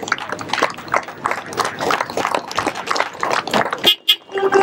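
Spectators shouting and cheering as the wrestling bout ends, with a short car-horn toot near the end.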